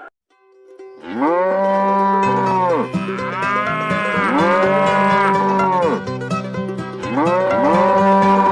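Cattle mooing: after a brief silence, several long moos follow one another and overlap. Background music with repeating low notes plays underneath from about two seconds in.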